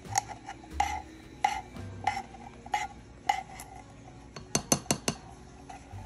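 A silicone spatula scraping sweetened condensed milk out of an open metal can, in repeated strokes about every half second with a short ringing note from the tin on each stroke. Near the end come four sharp clicks in quick succession.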